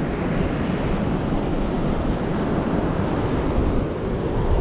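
Ocean surf washing onto a sandy beach, a steady noise, with wind buffeting the microphone.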